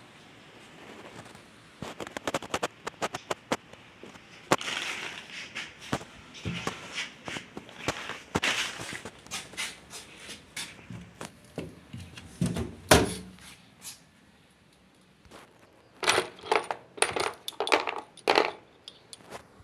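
Hard parts being handled and fitted: a run of sharp clicks, knocks and metallic clinks with some scraping, the loudest knock about thirteen seconds in, then a short lull before another burst of clicking.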